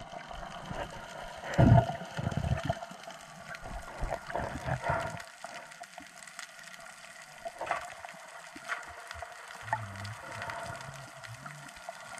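Underwater sound through a submerged camera: water noise with a run of low thumps in the first few seconds, the loudest about two seconds in, and a few short low tones near the end.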